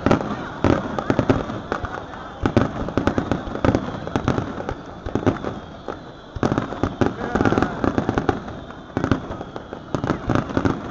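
Aerial fireworks shells bursting in quick succession: a dense run of sharp bangs and crackles, with a brief lull about six seconds in.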